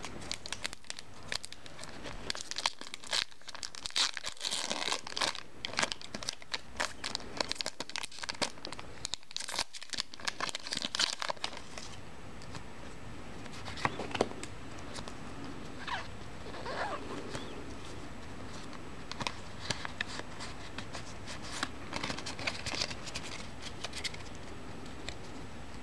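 Crinkling and tearing of a Pokémon trading-card blister pack and its foil booster pack being opened by hand: irregular crackles, busiest in the first dozen seconds, sparser in the middle, and busier again near the end.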